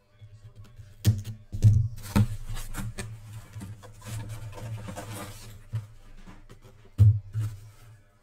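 Hands handling trading cards and a card display stand on a tabletop: sharp knocks and thumps about a second in, twice more just after, and again near seven seconds, with rustling and scraping of cards in between.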